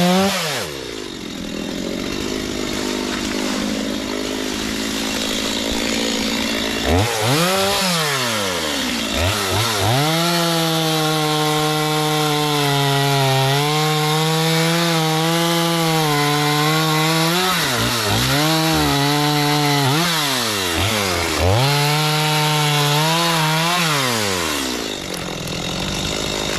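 Two-stroke chainsaw cutting into a resin-soaked lighter pine (fatwood) stump. It idles for the first several seconds, then is revved up and bogs slightly under load through about four cuts, dropping back toward idle between them.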